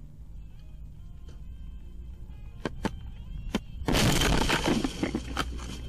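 Vehicle collision recorded by a dashcam: a few sharp clicks, then about four seconds in a sudden loud crash with breaking and rattling that dies away over about a second.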